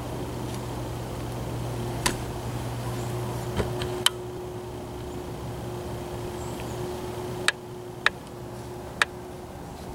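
A steady low hum with about six sharp, isolated clicks scattered through it.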